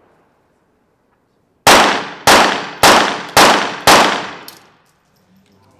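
A five-shot rapid fire pistol series: five .22 Short pistol shots in quick, even succession, a little over half a second apart, each trailing off in the reverberant indoor range.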